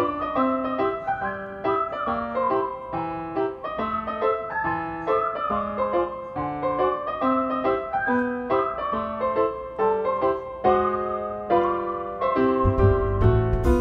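Background piano music: a melody of quick single notes over lower accompanying notes. A deep low rumble comes in near the end.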